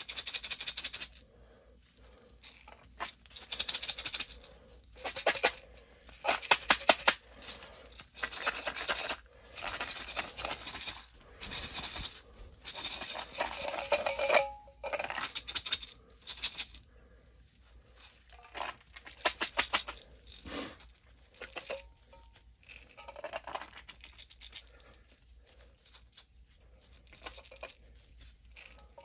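Corn grain spawn in glass mason jars being shaken in repeated bursts, the kernels rattling and clicking against the glass. This is a shake and break, done to break up the mycelium-bound grain and spread the mycelium through the jar.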